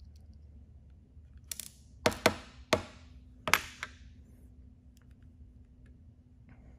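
Sharp metallic knocks and clinks, five or six within about two seconds, as the regulator piston is pushed out of an FX Impact M3 air-rifle regulator body.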